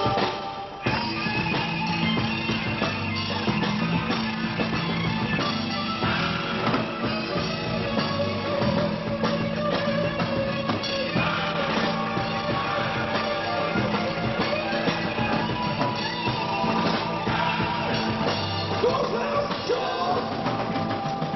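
Rock band playing: electric guitar, bass guitar and drum kit with singing, dense and continuous after a short drop about a second in.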